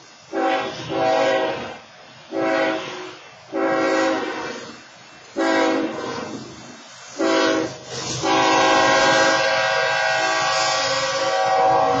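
BNSF locomotive air horn on an approaching train, sounded in a series of about five short blasts, then held in one long blast from about eight seconds in, over a low rumble.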